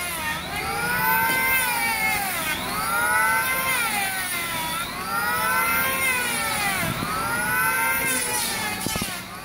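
Electric hand power planer shaving the face of a eucalyptus log. The motor's high whine sags in pitch as it bites into each pass and picks back up between passes, about every two seconds.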